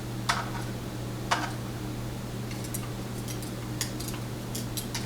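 Small metal clicks and ticks of lock pins, a spring and tweezers being worked out of a pin tumbler lock cylinder during disassembly: two sharp clicks in the first second and a half, then a scatter of fainter ticks, over a steady low hum.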